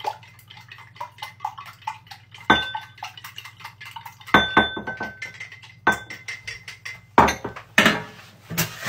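An egg being beaten in a ceramic mug with a small utensil: quick light clicks against the sides of the mug, then several louder ringing clinks. Near the end come a few heavier knocks as the mug is set down on the worktop.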